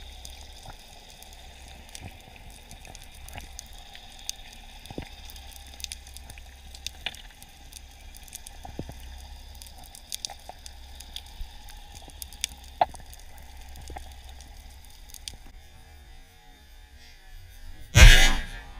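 Underwater hiss with scattered sharp clicks, then near the end a speargun fires at a barracuda: one short, loud thump with a brief rush that dies away within half a second.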